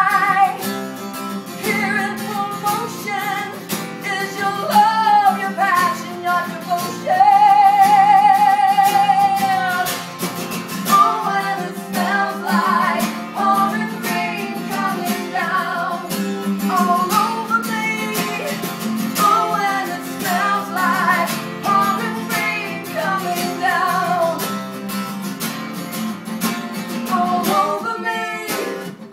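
A woman singing live to a strummed acoustic guitar. About seven seconds in she holds one long note with vibrato for some three seconds.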